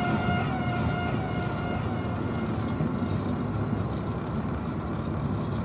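Steady engine and road noise inside a car's cabin as it slows in fifth gear at low revs, around 1,200 rpm. A held tone from music fades away in the first two seconds.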